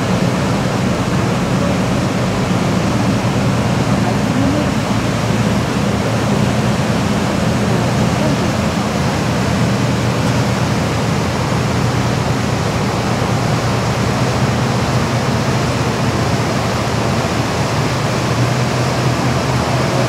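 Waterfall cascading over rock into the fjord: a steady rush of falling water, with a steady low hum from the tour boat's engine underneath.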